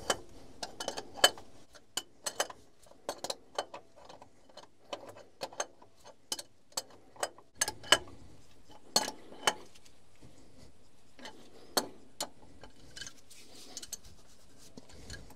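Irregular sharp metallic clicks and clinks, about one or two a second, as a filter part is jiggled and worked into place on its housing.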